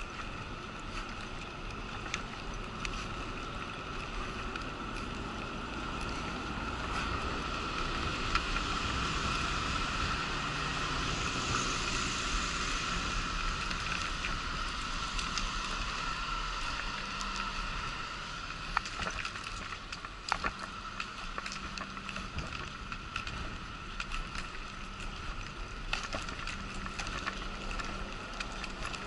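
A wheelchair rolling along pavement makes a steady hum with wheel noise and scattered sharp clicks, several of them in the second half. Road traffic passing alongside swells up around the middle.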